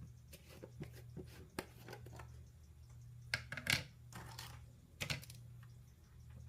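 Scattered light clicks and knocks of dishes and utensils being handled, loudest a little over three seconds in, over a steady low hum.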